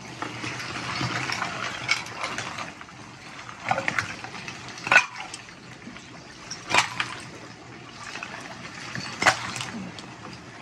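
Ice water sloshing in a chest-freezer ice bath as a person shifts and settles lower in it, with about five sharp clicks of ice knocking.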